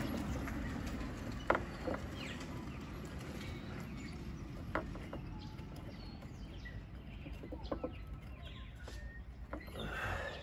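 Hands handling thin automotive wires and a plastic crimp connector at a car's tail light loom: small rustles and ticks, with two sharp clicks about three seconds apart, over a steady low background noise. A few short, faint calls sound in the background.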